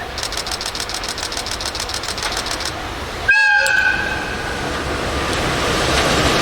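Freight train approaching a level crossing: rapid high ticking for the first few seconds, then about three seconds in the locomotive's horn gives one short blast, followed by the growing rumble of the train.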